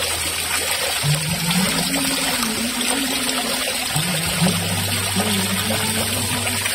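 Water pouring and splashing steadily from a perforated PVC spray pipe into a glass fish tank, many thin streams falling onto the water surface. A low melody of background music runs faintly underneath, coming in about a second in.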